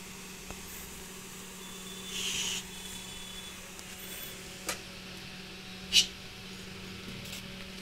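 Two sharp taps of a snake-catching stick on hard ground, the second one, about six seconds in, much louder. A short hiss comes about two seconds in over a steady low hum.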